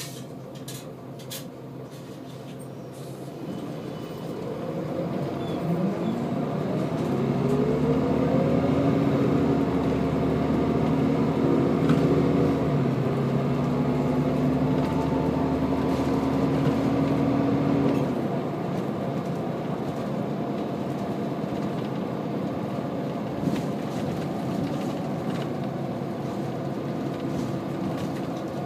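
Scania L94UB bus engine heard from inside the saloon, pulling away and building up a few seconds in, its note climbing and then stepping down as the ZF automatic gearbox changes up. About two-thirds of the way through the load comes off and it settles to a quieter steady cruise.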